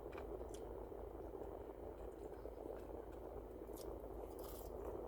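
Quiet room tone: a steady low hum with a few faint short clicks.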